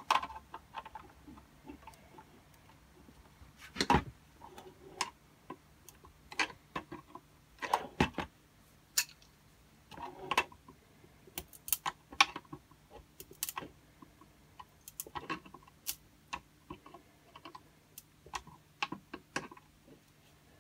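Irregular clicks and knocks of hard 3D-printed plastic parts and steel pliers being handled on a workbench, some sharp taps louder than the rest, over a faint steady hum.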